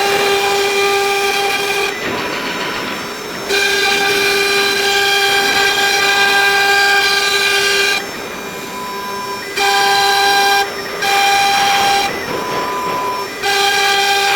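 ELE 1212 CNC router's drive motors whining as the machine moves. The steady pitched whine stops and starts five times in runs of one to four seconds, with a fainter higher tone in the short pauses between.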